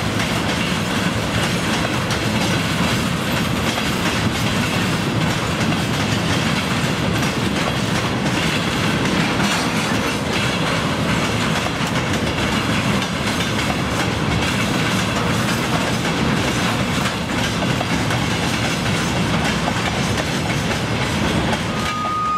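Freight train of railway tank cars rolling past, wheels clattering steadily over the rail joints. A steady high tone starts just before the end.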